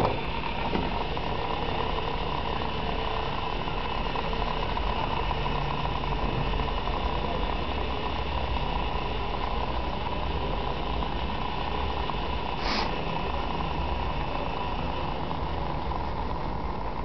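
Clockwork spring motor of a wind-up toy microwave running down with a steady whirring hum. There is one short high-pitched sound about thirteen seconds in, and the higher part of the whirr fades out near the end.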